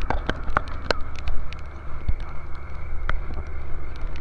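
A boat's engine running steadily in rough sea and strong wind. Many sharp, irregular clicks and knocks sound over the engine's hum.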